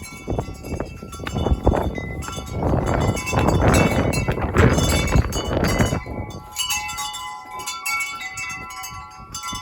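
Chimes ringing steadily, under a loud rough noise that swells and fades over the first six seconds.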